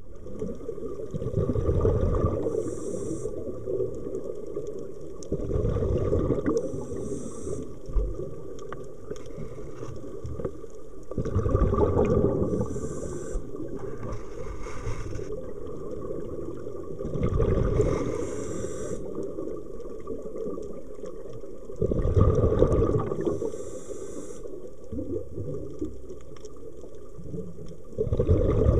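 Scuba diver's breathing through a regulator underwater: a low bubbling rumble from each exhalation about every five to six seconds, each paired with a brief high hiss, over a steady underwater wash.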